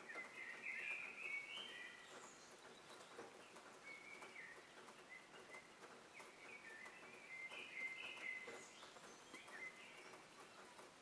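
Faint birdsong: small birds chirping and warbling in short phrases, loudest about a second in and again about eight seconds in, over a steady hiss.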